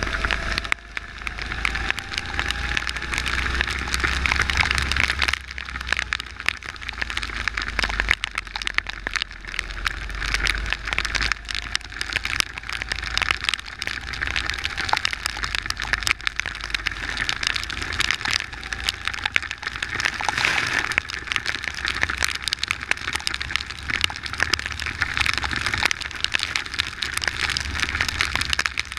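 Rain and water spray pattering on an onboard camera on a go-kart driving at speed on a wet track, a dense crackling hiss. Underneath, the kart's small engine is faintly heard, its pitch rising several times as it accelerates.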